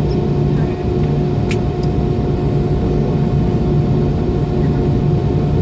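Cabin drone of an MD-90's IAE V2500 jet engines at low power before takeoff: a steady rumble with a constant whine and a pulsing hum. A single sharp click about a second and a half in.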